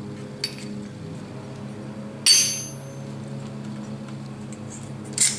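Steel milling cutters clinking against one another in a wire basket as a hand moves them: a faint clink about half a second in, a louder ringing clink a little after two seconds, and another near the end, over a steady low hum.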